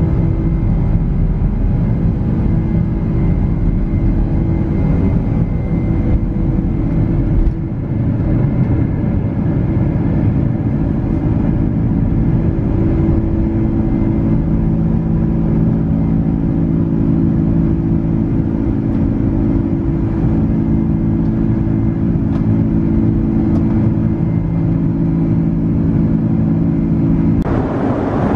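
Boeing 747-400's General Electric CF6 turbofans at takeoff power, heard inside the upper-deck cabin: a loud, steady engine noise with several droning tones. The low runway rumble stops about eight seconds in as the aircraft lifts off, and the engines run on steadily through the climb. Near the end the sound cuts abruptly to a hissier noise.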